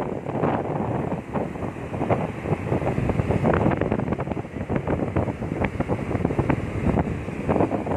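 Wind buffeting the microphone in an uneven, fluttering rush, with the wash of sea waves beneath.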